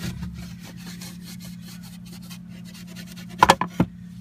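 Disinfecting wipe rubbed and scrubbed over a dirty sink surface, many quick scratchy strokes. A few sharp knocks, the loudest sounds, come about three and a half seconds in.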